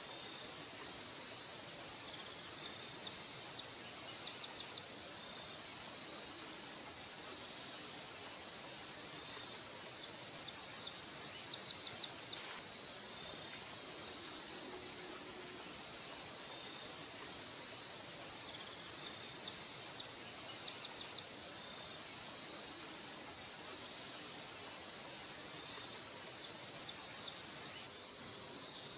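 Steady chorus of insects, a continuous high trill, with a few brief louder chirps about twelve seconds in.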